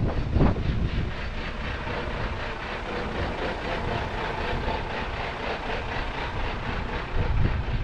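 Steady road traffic at an intersection, with a cement mixer truck's diesel engine running close by. Low gusts of wind hit the microphone at the start and again near the end.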